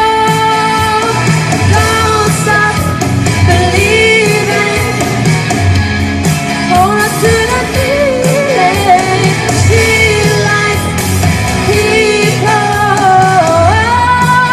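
A singer performing a rock song live over a backing track, holding long notes that slide between pitches, over a steady bass beat.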